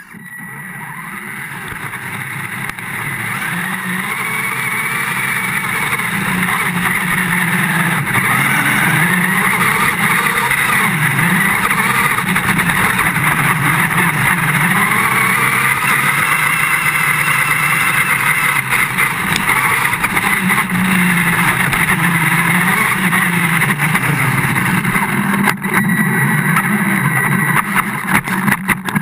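Radio-controlled monster truck's motor running hard as it drives, its pitch rising and falling with the throttle, heard from a camera mounted on the truck. The sound fades in over the first few seconds.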